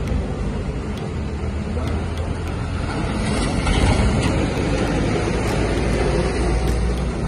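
Lorry engine noise, low and steady, growing louder about three seconds in.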